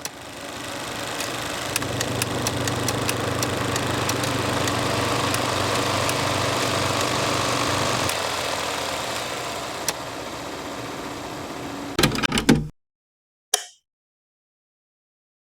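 An engine running steadily at idle, with scattered clicks; its sound drops a step about eight seconds in, and after a few knocks near the end it cuts off suddenly.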